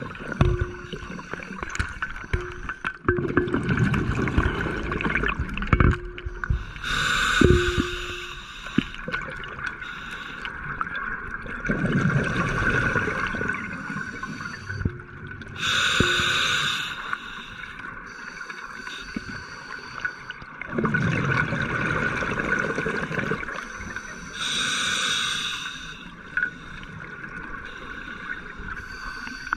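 Scuba diver breathing underwater through a regulator: a short hissing inhalation about every nine seconds, three in all, each breath let out as a long bubbling exhalation.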